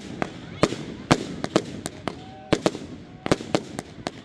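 Fireworks display: about a dozen sharp bangs and cracks from bursting aerial shells, going off irregularly over a low rumble.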